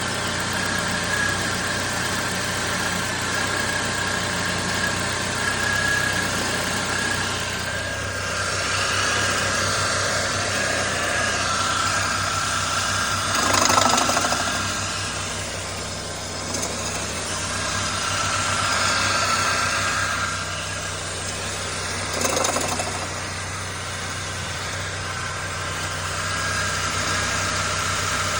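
2000 Saab 9-3 SE engine idling in its engine bay, with a higher whine that comes and goes and swells louder twice. It is an odd noise the owner cannot place, still there after the pulleys, drive belt and alternator were all replaced.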